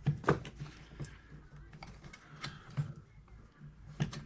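A few scattered light clicks and knocks of tools and wood being handled while a pencil mark is made on the shower-valve framing, over a steady low hum.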